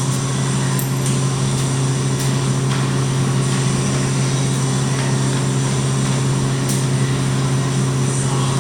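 Stick welder laying a tack weld: a steady electrical hum under a continuous even sizzle from the arc.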